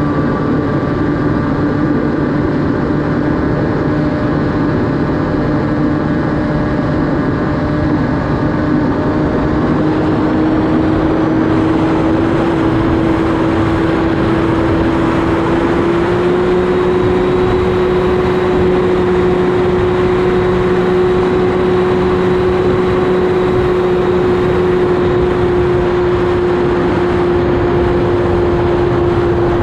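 Electric motor and propeller of an AtomRC Dolphin FPV plane in flight: a steady buzzing hum over rushing wind noise. The hum rises a little in pitch about halfway through as the throttle comes up, then holds.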